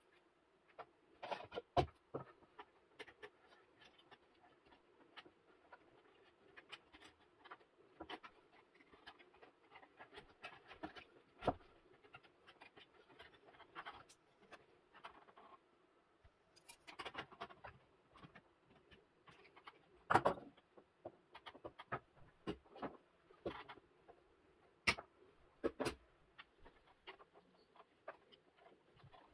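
Faint handling sounds of cable work: rustling and irregular light clicks and knocks as the paper filler strands are pulled off a multicore electrical cable and its wires are fed through a plastic cable gland into a plastic enclosure.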